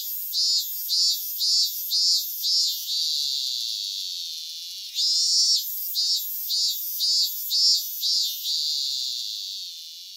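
Cicada song: a steady high-pitched buzz that breaks into runs of short pulses, about two or three a second, then settles back into the buzz, twice over.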